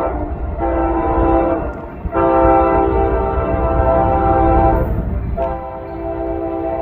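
CSX locomotive air horn sounding a chord in a string of blasts: one ending just after the start, a blast of about a second, a long blast of nearly three seconds (the loudest), and another starting about five and a half seconds in, played as a horn show rather than a standard crossing signal. A low rumble runs underneath.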